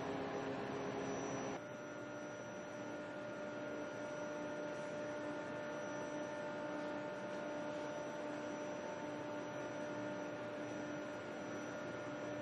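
Steady room-tone hum of a large hangar, with several held tones over a faint hiss. About a second and a half in it changes abruptly to a slightly quieter hum with a different set of tones, which then holds steady.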